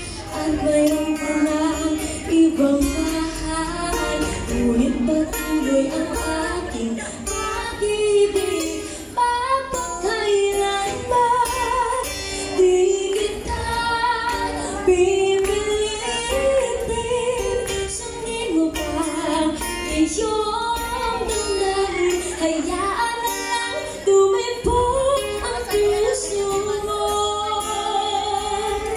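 A woman singing a slow Filipino ballad live into a microphone, accompanied by a strummed acoustic guitar.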